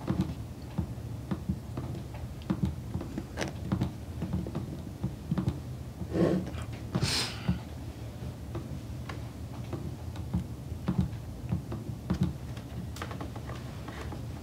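Scattered light clicks and taps of laptop keys and trackpads over a low room hum, with a brief hissing sound about seven seconds in.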